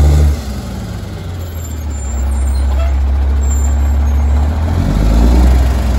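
2007 Mack LE garbage truck's diesel engine running as the rear loader drives up. The engine drops off sharply a moment in, then pulls harder again from about two seconds in, loudest near the end.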